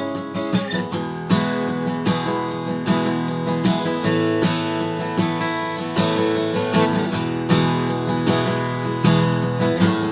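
Martin Style 28 steel-string acoustic guitar with a Sitka spruce top and Madagascar rosewood back and sides, played with a steady rhythm of strummed and picked chords that ring on between strokes.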